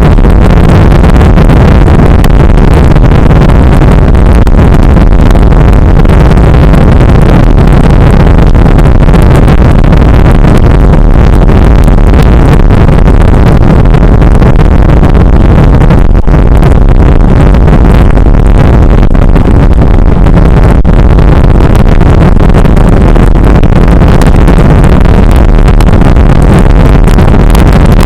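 Steady, loud wind rush buffeting the microphone of a camera on a moving bicycle, mixed with road noise, pushing the level to full scale.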